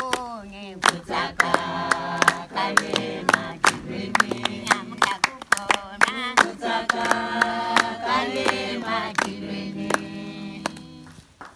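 Voices singing together, with held and gliding notes, over sharp hand claps a few times a second; it fades out near the end.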